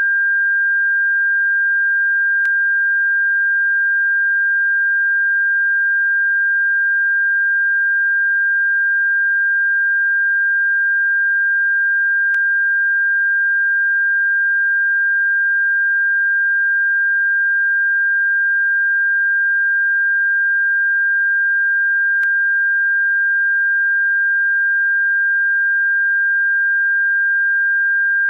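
Electronically generated pure sine tone, sold as a bird-repellent frequency, held at one steady high pitch without a break. A faint click comes three times, about ten seconds apart.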